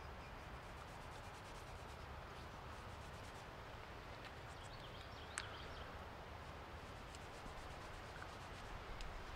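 Faint rubbing of fingertips working oil into a knife handle, with one sharp click about five seconds in.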